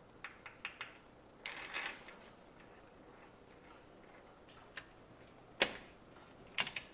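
Light metal clicks and clinks as the crank sprocket, washer and new crank bolt are fitted by hand on the crankshaft nose, then a louder sharp metallic clack about two-thirds through and a quick run of clicks near the end as a socket on a long wrench is set on the crank bolt.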